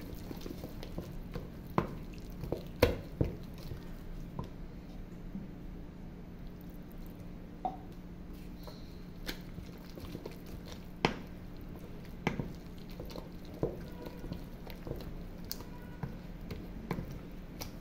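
Wet, sticky bread dough being stirred and beaten with a wooden spoon in a stainless steel bowl while warm milk is worked into it: squelching, with irregular knocks of the spoon against the bowl, over a steady low hum.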